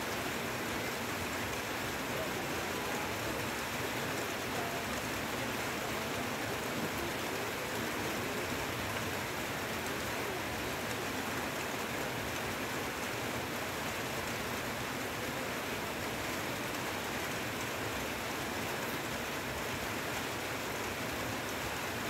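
Heavy rain falling steadily on forest leaves, an even hiss with no break.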